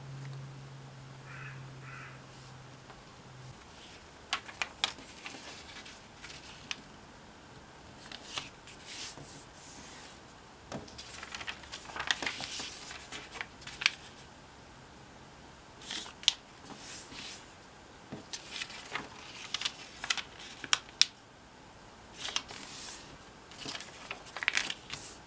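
Origami paper being handled and folded by hand: rustling, with sharp crisp clicks as creases are pressed and sheets are flipped on the table.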